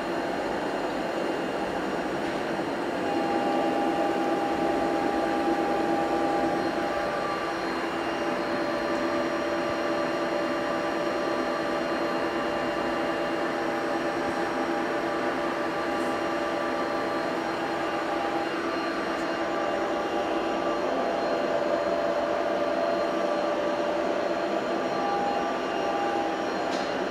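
CNC vertical milling machine running, its spindle turning an end mill through a metal block: a steady machining drone with several held tones that shift a few times as the cut goes on.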